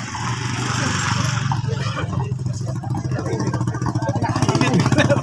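Motorcycle engine running steadily at low revs, with rapid even firing pulses, growing slightly louder toward the end.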